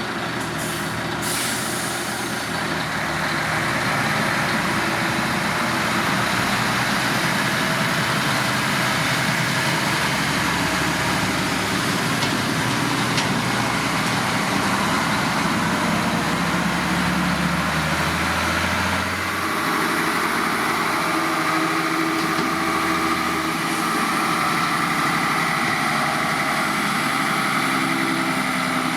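Concrete mixer truck running steadily with its diesel engine at work, a dense mechanical rumble and churn. A short hiss of air comes about a second in, and the engine note changes about two-thirds of the way through.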